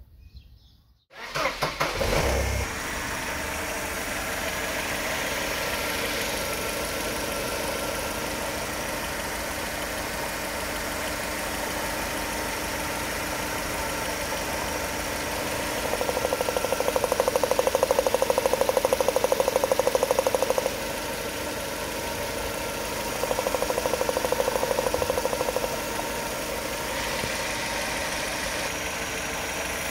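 A Mercedes-Benz W210's petrol engine cranks and catches about a second in, then idles steadily. Twice the running turns louder and harsher with a rapid rattling buzz, which fits the spark plug leads being pulled off one cylinder at a time to find a faulty ignition coil.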